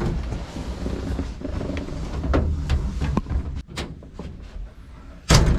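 Scuffing and a few light knocks from climbing into the cab, then the heavy, thick all-metal cab door of a 1948 Diamond T 306 truck slams shut with one loud bang about five seconds in.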